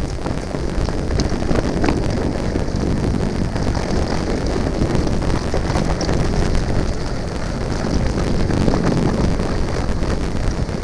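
Steady, dense rumbling noise picked up by a GoPro Hero5 Black's microphone on a mountain bike ride down a dirt trail: wind buffeting the microphone, mixed with the bike's rattle over the ground. The owner presents this recording as an audio problem with the new camera.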